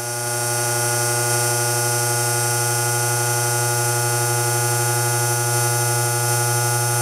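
A steady held electronic drone, one low note with a rich stack of overtones that does not change, typical of a synthesizer note held at the close of intro music.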